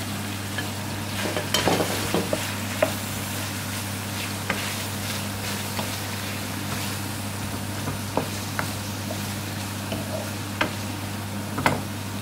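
Sliced onions frying and sizzling in hot vegetable oil in a metal pan as a wooden spoon stirs them, with short knocks and scrapes against the pan now and then. A steady low hum runs underneath.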